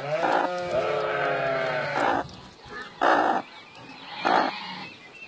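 Animal calls from a broody hen with the kittens she is sitting on: one long wavering cry in the first two seconds, then three short harsh calls about a second apart.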